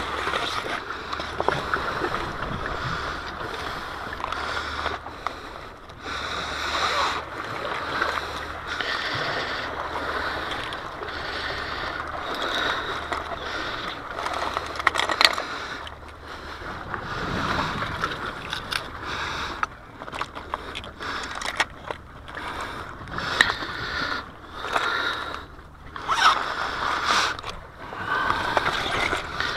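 Close rustling and scraping of a nylon bag and a plastic box of fishing lures being handled, with scattered small clicks and knocks, over a steady rushing background noise.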